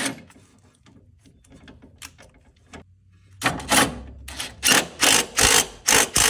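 A wrench tightening the new ball joint bolt on a Honda Civic's front suspension. Faint ticks give way, a few seconds in, to a run of short, sharp mechanical bursts, about three a second.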